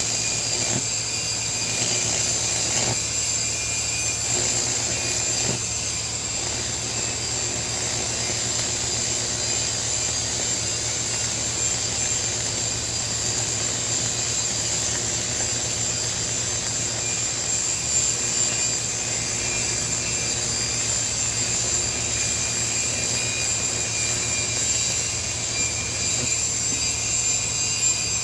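Steady workshop machine noise from metal repair work: a constant low hum under a high, hissing whine that keeps going without a break.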